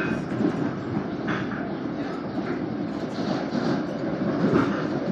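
Inside a Long Island Rail Road M7 electric multiple-unit railcar under way: the steady running rumble of steel wheels on the rails, with a few brief louder bumps.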